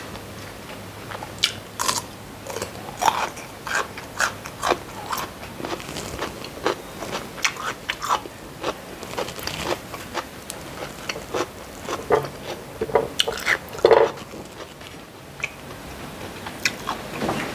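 A person chewing crisp food close to the microphone: a quick, irregular run of crunches and bites, loudest in a cluster about fourteen seconds in.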